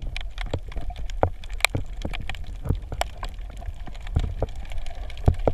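Underwater ambience picked up by a submerged camera: irregular sharp clicks and crackles, several a second, over a low rumble of moving water.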